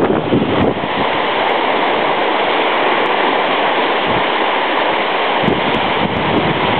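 Small sea waves washing onto a sandy shore, a steady, continuous hiss of surf.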